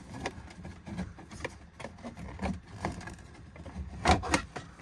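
Plastic dashboard trim bezel being worked down over the instrument cluster: scattered light clicks and rubbing of plastic on plastic, with two sharper knocks about four seconds in.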